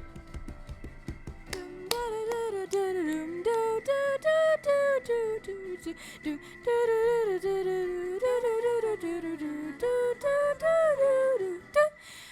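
A voice humming a wordless melody that slides from note to note, after a quick run of clicks in the first couple of seconds.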